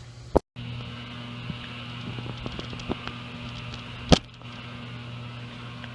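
Steady low hum with faint scattered ticks, broken by a sharp click near the start and a louder single click about four seconds in.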